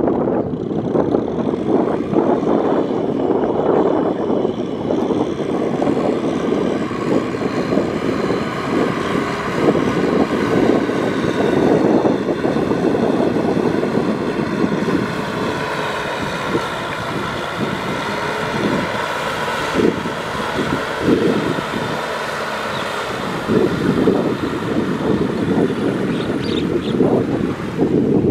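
Kubota M6040SU tractor's diesel engine running steadily under load while its rear rotary tiller churns through wet paddy mud and water, with irregular splashing surges.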